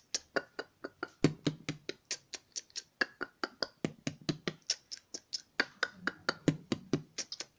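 A boy beatboxing: a fast run of sharp mouth clicks and ticks, about six to eight a second, with deeper thumps mixed in.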